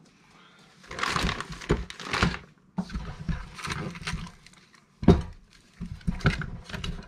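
Cardboard box and packaging being handled as an RC buggy chassis is lifted out: irregular rustling and scraping with scattered clicks, and a solid knock about five seconds in.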